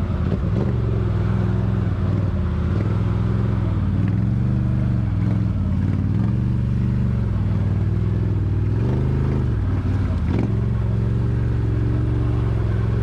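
Can-Am Outlander XMR ATV engine running in low range through mud, its revs rising and easing off several times, with a sharp knock about ten seconds in.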